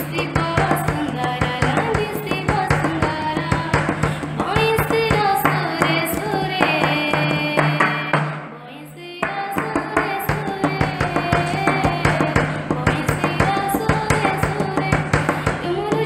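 Odia Krishna bhajan ringtone music: a melody over a steady drone and quick drum beats. It dies away briefly just past the middle and then starts again.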